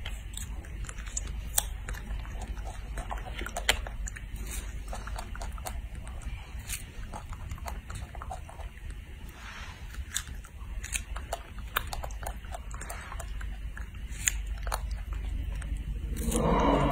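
Baby macaque biting and chewing strawberries: short wet smacking clicks scattered throughout, over a low steady hum. Near the end a louder voice-like call starts.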